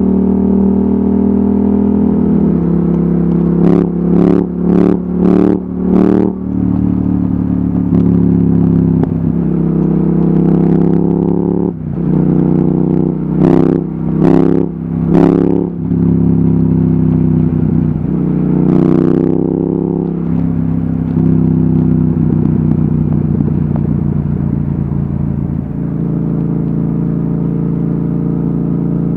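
Yamaha XSR700's parallel-twin engine through an Akrapovic exhaust, heard onboard while riding: the engine note steps up and down with speed and gears. It has two runs of short sharp throttle bursts, five about four seconds in and four around fourteen seconds.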